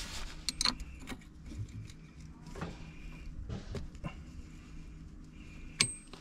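Scattered metallic clicks and knocks from hand tools, a wrench against metal, working at a car's front brake caliper. A steady low hum runs underneath.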